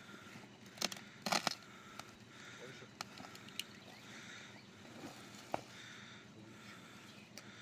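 A few sharp knocks and clicks over a faint steady background, loudest in a quick cluster about a second in.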